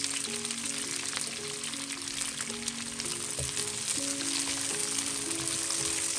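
Cut long beans frying in a little hot oil in a wok: a steady, dense sizzle and crackle while a silicone spatula turns them.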